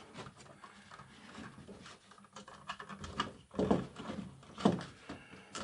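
An electrical box with cable fed into it being pushed and fitted into a drywall cutout: soft rustling and scraping, then a few short knocks and clicks in the second half.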